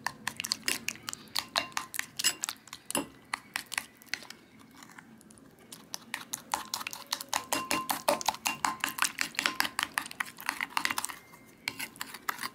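A metal spoon beats a wet egg mixture in a glass bowl, making rapid clinks and taps against the glass. There is a pause of about two seconds a third of the way in.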